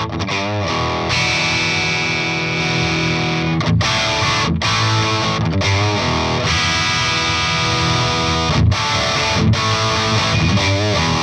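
Electric guitar played through a Peavey Bravo 112 all-tube combo amp on its gain channel: distorted chords, changed several times, with some held notes shaken with vibrato. The gain is being turned up from 9 o'clock, taking the tone from fairly clean toward full saturation.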